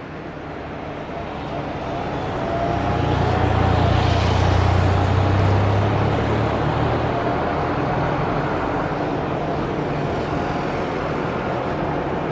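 A motor vehicle passing close by over steady city traffic noise, its low engine hum building to a peak a few seconds in and then easing off.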